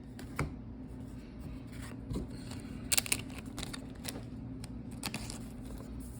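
Foil trading-card booster packs being handled, giving a few short crackles and clicks over a steady low hum.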